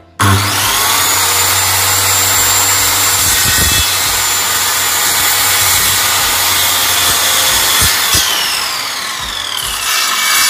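Bosch GKS 140 electric circular saw starting up abruptly and cutting through a wooden board, a loud steady whine over the rasp of the blade in the wood. Near the end the whine drops in pitch.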